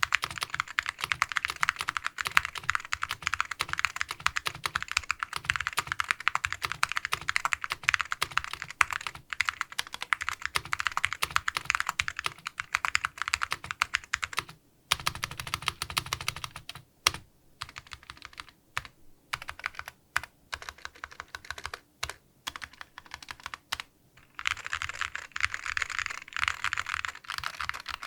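Custom mechanical keyboard with vintage Alps SKCL Green switches, C.ITOH keycaps and a POM half plate being typed on: fast continuous typing for about fifteen seconds, then the modifier keys pressed one at a time with pauses between strokes, then fast typing again near the end.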